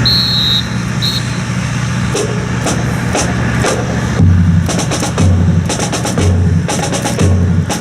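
Marching percussion playing a rhythm. From about four seconds in a bass drum strikes about once a second, with snare and other sharp percussion strokes between the beats, over a steady low hum. A brief high tone sounds near the start.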